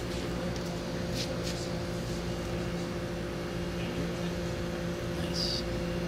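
Window air conditioner running, close to its grille: the steady hum of several tones from a smooth-running rotary compressor, under the rush of the fan's airflow.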